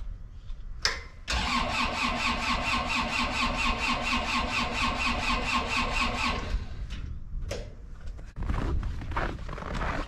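Gehl 4400 skid steer's engine cranking over on the starter with an even, fast beat for about five seconds without catching, then cut off: the cold-soaked engine won't start.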